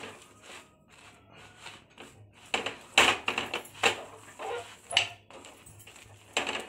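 Metal spoon scraping and tapping over a makki ki roti on a hot tawa as desi ghee is spread across it: a string of irregular scrapes and clicks, the loudest about three, four and five seconds in.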